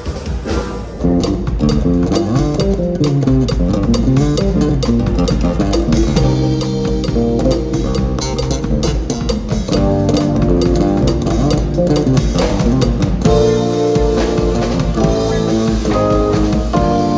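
Live band playing an instrumental tune on electric bass guitar, drum kit and keyboard, with a steady drum beat. The music jumps abruptly to a louder passage about a second in.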